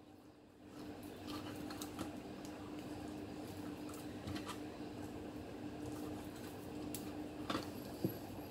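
Kitchen knife cutting raw chicken breast on a cutting board: faint scrapes and light ticks of the blade through the meat and against the board, with a couple of louder taps near the end, over a steady low hum.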